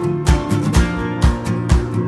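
Background music: acoustic guitar strumming over a steady beat of about two thumps a second.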